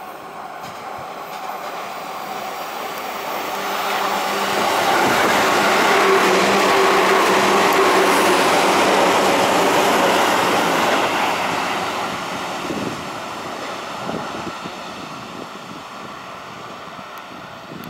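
JR East 205 series electric commuter train passing through the station without stopping: the rail noise builds to a loud pass with a steady traction-motor hum, then fades away. Its traction motors are a mix of external-fan and internal-fan types.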